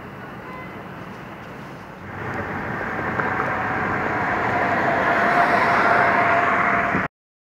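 City traffic and road noise heard from inside a moving car, a steady hiss that grows louder about two seconds in and cuts off abruptly near the end.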